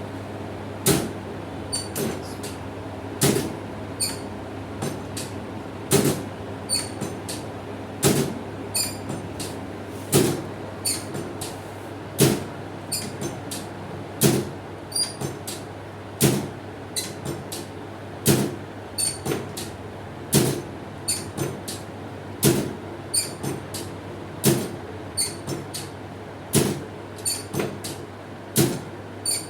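A regular series of sharp knocks, about one every two seconds, each followed by a few lighter clicks, over a steady low hum.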